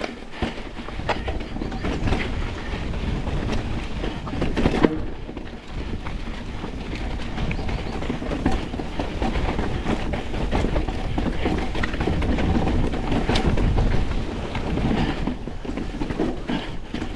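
2025 Pivot Switchblade mountain bike descending rough, rocky trail: a continuous rolling rumble of tyres over rock and dirt, with frequent sharp knocks and rattles from the bike as it hits the chunk.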